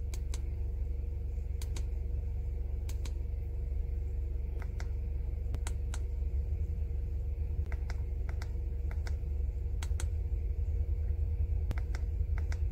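Buttons on the keypad of an ANCEL FX3000 handheld scan tool clicking now and then, a dozen or so presses, several in quick pairs, over a steady low hum.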